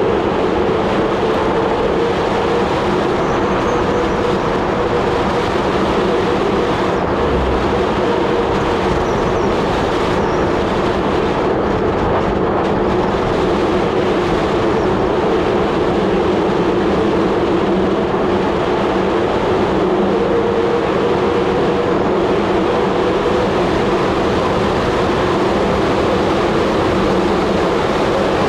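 Steady rush of wind on the microphone of a bicycle descending a paved road at speed, mixed with tyre rumble on the asphalt.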